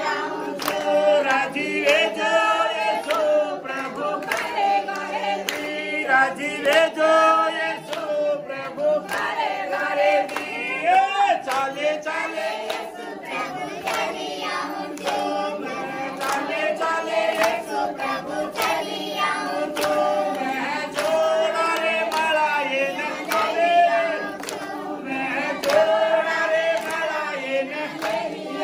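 A mixed group of women's and men's voices singing a Christian worship song together for a Banjara tribal dance, with hand clapping through the song.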